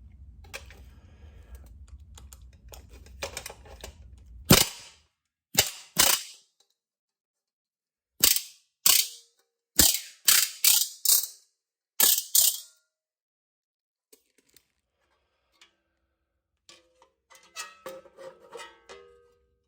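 Solid aluminium aircraft rivet being driven against a bucking bar: about eleven sharp metallic strikes with a brief ring, coming in uneven groups. A low steady hum runs underneath before the strikes begin, and faint metal handling clatter follows near the end.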